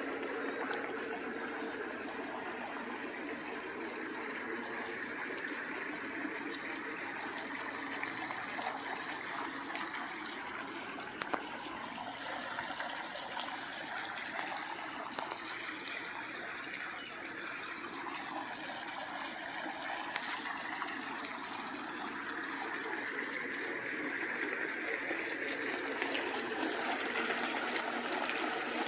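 Steady running and trickling of water in an Intex above-ground pool, most likely the filter return flowing into the pool.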